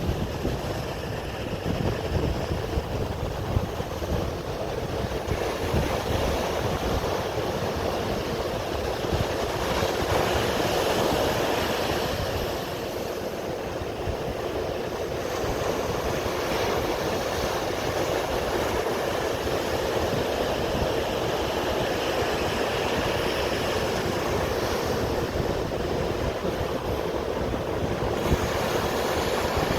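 Sea waves washing steadily, a continuous rushing that swells and eases slowly, with a low rumble underneath.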